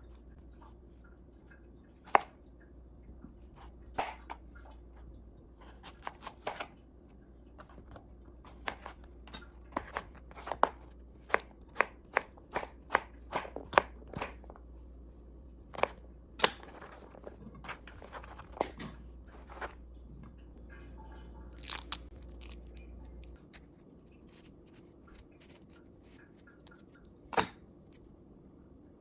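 Chef's knife chopping a cucumber on a plastic cutting board: irregular sharp knocks of the blade meeting the board, coming quickest about ten to fourteen seconds in. A low steady hum underneath stops about two thirds of the way through.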